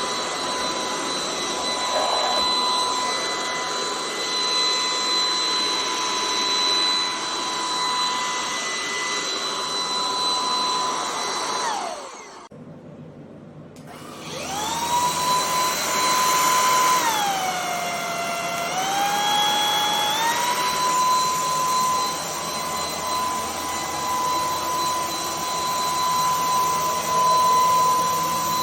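Anyson cordless stick vacuum's motor running with a steady high whine over rushing air. About twelve seconds in it winds down and stops, then starts again about two seconds later and winds back up. It drops to a lower pitch and steps back up to full pitch in two stages before running steady again.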